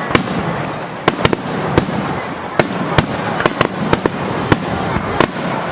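Fireworks display finale: aerial shells bursting in a rapid, uneven series of sharp bangs, about a dozen in under six seconds, over a continuous background rumble.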